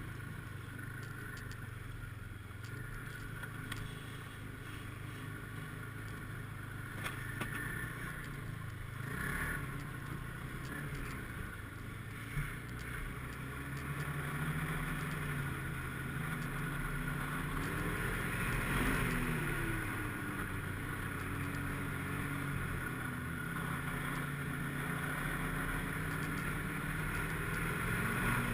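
Snowmobile engine running while riding. Its pitch rises and falls about two-thirds of the way through as the throttle changes.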